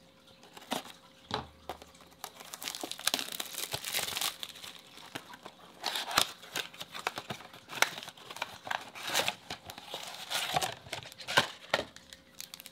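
Cardboard trading-card blaster box being torn open by hand along its flap, with irregular tearing and crinkling of the packaging.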